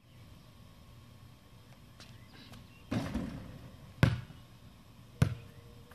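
A basketball strikes a portable driveway hoop about three seconds in with a short rattling clatter, then bounces on the concrete slab: two sharp bounces about a second apart.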